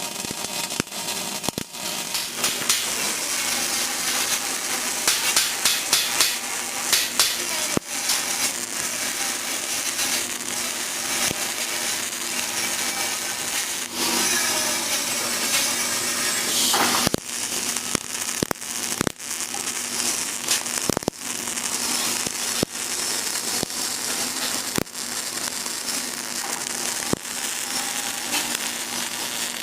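CO2 semi-automatic (MIG) welding arc crackling and sputtering, with the arc stopping and restarting several times. A steady hum runs underneath.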